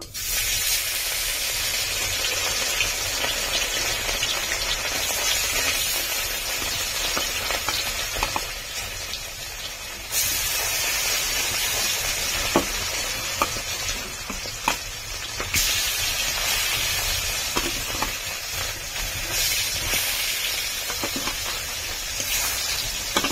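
Rohu fish pieces, rubbed with salt and turmeric, sizzling in very hot oil in a kadai, with scattered sharp pops and spits. The sizzle grows louder about ten seconds in.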